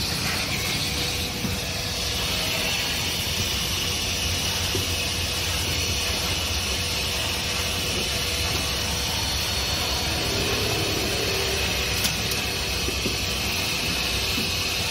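Vacuum cleaner running steadily, its hose nozzle sucking over a car's rear footwell carpet. It makes a constant rushing hiss with a high whine on top.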